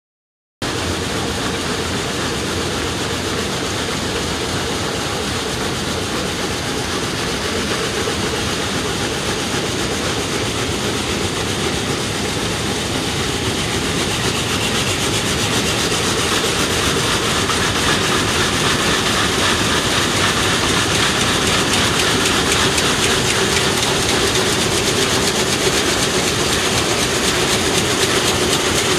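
Vamatex rapier weaving looms running on a mill floor: a loud, dense, steady clatter of rapid beats from many looms together, growing slightly louder in the second half.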